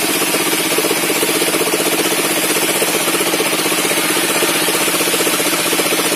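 Engine of a table circular saw rig running steadily with a fast, even beat.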